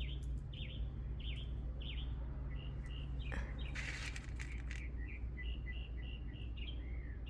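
A bird chirping repeatedly, short high notes coming a little under a second apart, over a steady low hum. A brief rustling noise comes about three and a half seconds in.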